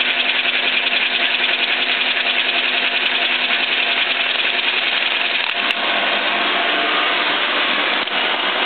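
Biernatzki horizontal milling machine running on test with its newly fitted drive shaft: a loud, steady gear whir with many steady tones. Two sharp clicks come about five and a half seconds in, and the sound shifts slightly after them. Much of the gear noise is what the owner puts down to the noisy table feed gearbox.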